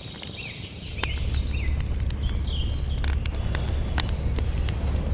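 Wood fire crackling with scattered sharp pops over a steady deep rumble. Small birds chirp a quick repeated rising-and-falling note through the first second or two.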